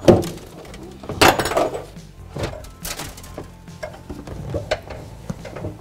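Old truck carpet with its felt jute padding being pulled up and dragged across the floor: rustling and scraping with small knocks, in a few hard pulls, the loudest just after the start and about a second in.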